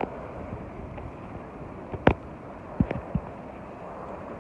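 Wind buffeting the microphone as a steady rough rushing, broken by a few sharp low thumps about two and three seconds in.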